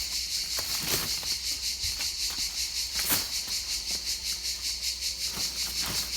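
A steady, high-pitched chorus of insects, pulsing rapidly. A few soft knocks are heard now and then, from handling.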